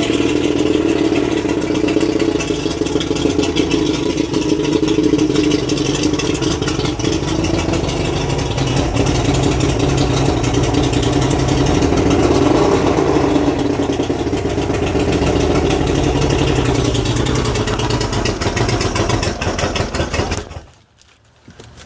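Outboard motor, its cowling off, running steadily, then shutting off abruptly near the end.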